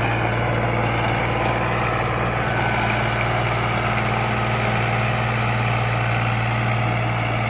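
Diesel farm tractor's engine running steadily under load as it pulls a PTO-driven rotavator through the soil, holding one constant pitch.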